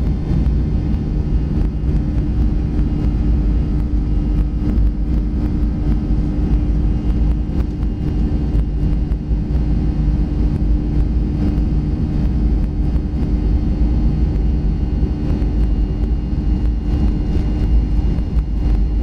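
Steady cabin noise of a Boeing 737-400 climbing after take-off: a constant low rumble of its CFM56-3 turbofan engines and airflow, heard from inside the cabin, with a steady hum over it.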